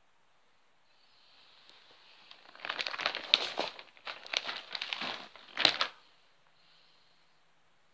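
Sheets of paper rustling and crinkling as they are handled. The rustle starts faintly, turns into a dense, irregular run of crackles about two and a half seconds in, and ends with one sharp crackle about six seconds in.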